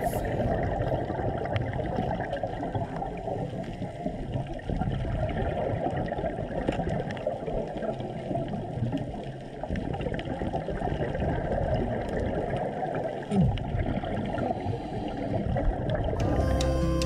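Muffled underwater sound picked up through a camera's waterproof housing: dense crackling and gurgling of water and bubbles. Music comes in near the end.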